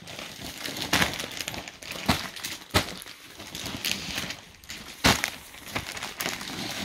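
Crinkling and rustling of a packaged suit and its wrapping being handled and unfolded, with a few sharp clicks along the way.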